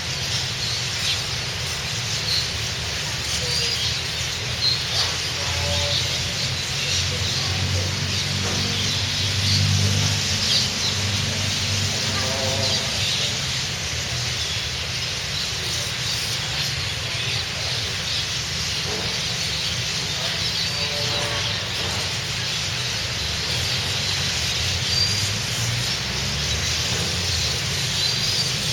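Small birds perched on a wire, calling in many short high chirps scattered throughout, over a steady low rumble.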